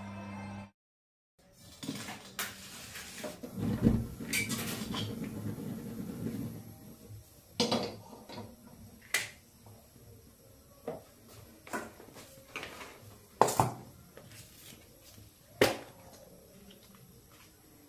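Stainless-steel pots, bowls and utensils clinking and knocking as they are handled and set down: a scattered series of separate sharp clanks with quieter clatter between them.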